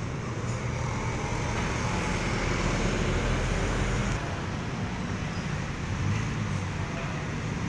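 Road traffic: motorcycles, cars and trucks passing, a steady mix of engine and tyre noise, with a deeper engine rumble that drops away about four seconds in.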